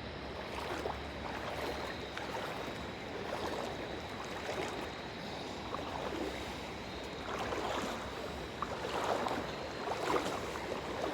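Wading through shallow water: legs pushing and sloshing through it in repeated splashy swells about once a second, heavier near the end.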